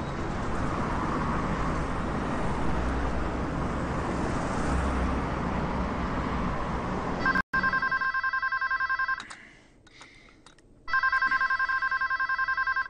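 A steady rushing noise that cuts off about seven and a half seconds in, then a wall-mounted telephone ringing twice with a fast trilling electronic two-tone ring, each ring about two seconds long with a pause between.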